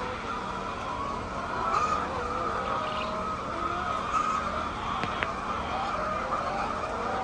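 A flock of poultry calling all together in a steady din of many overlapping wavering calls, with a faint steady hum underneath.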